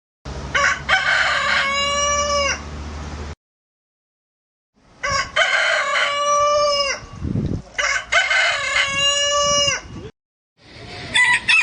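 Rooster crowing three times, each crow a series of short notes ending in a long held note that drops away at the end. The crows are separate recordings joined with dead silence between them, and a fourth crow begins near the end.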